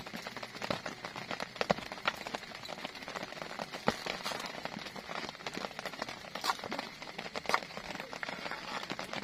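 Rain falling, with many irregular drops tapping sharply on a surface over a steady patter.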